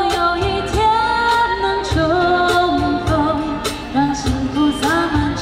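A female singer's voice carrying a pop song melody with held, sliding notes, over a band with a steady drum beat.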